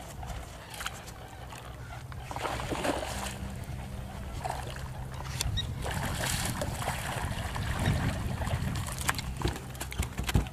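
A hooked largemouth bass splashing at the surface as it is fought to the boat, over a low steady rumble. A few sharp knocks come near the end as the fish is brought to the boat.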